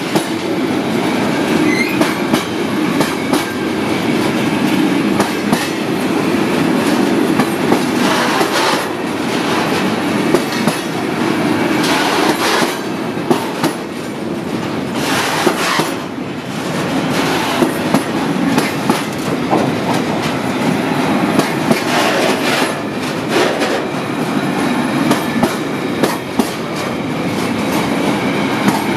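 Freight train of flat wagons loaded with shipping containers passing, a steady rolling rumble with irregular clicks from the wheels over rail joints.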